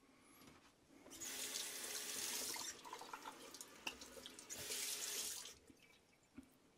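Water tap running into a sink in two spells, the first about a second and a half long and the second about a second, with small clinks and splashes between them.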